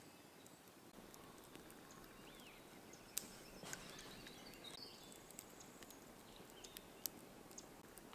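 Small wood campfire crackling with scattered sharp pops; the two loudest pops come about three seconds in and about seven seconds in.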